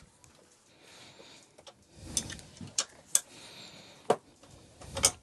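Half a dozen separate sharp clicks and light knocks of hand tools on metal parts as a mini motorbike's handlebar fittings are tightened.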